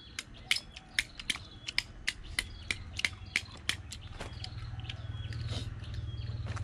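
Sharp clicking taps, about two or three a second, of a knife chopping the tail tips off grilled apple snail shells so the meat can be pulled out. A low steady hum comes up about four seconds in.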